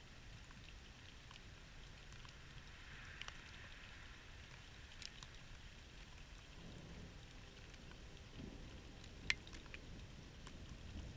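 Light thunderstorm rain: sparse raindrops ticking close by over a faint steady hiss, the sharpest tick about nine seconds in. A faint low rumble comes in just past halfway.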